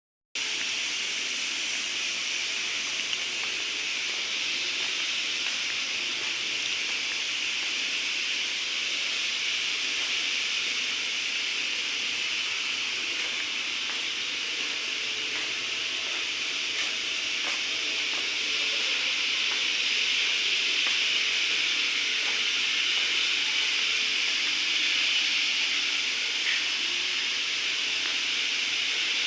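Wood CNC machine running steadily, giving a continuous high hiss with a few faint tones underneath.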